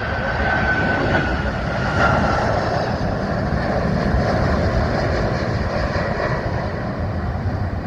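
Jet engines of an Airbus A330-300 (Pratt & Whitney PW4000 turbofans) on landing, a steady rumble with a faint high whine that drops slightly in pitch over the first two seconds.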